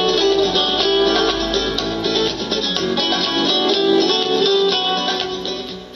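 Background music: a plucked-string instrumental, quick picked notes, fading out near the end.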